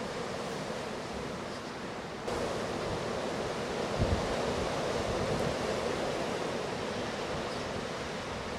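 Strong wind blowing as a steady rushing noise, growing louder a little over two seconds in. A gust buffets the microphone with a low thump about four seconds in.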